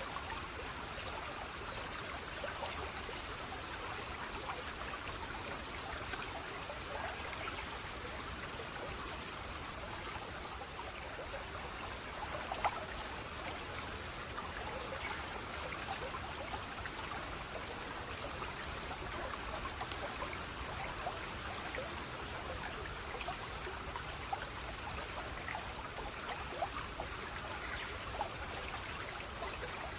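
Water flowing steadily in a small stream, trickling and splashing, with scattered small drips and one slightly louder splash about twelve seconds in.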